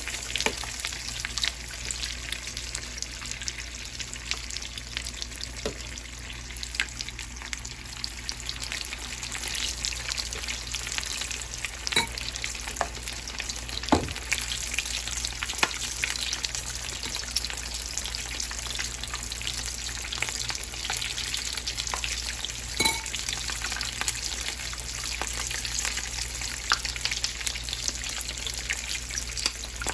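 Corn-dough empanadas deep-frying in hot oil: a steady sizzle thick with fine crackles, broken by a few louder sharp clicks.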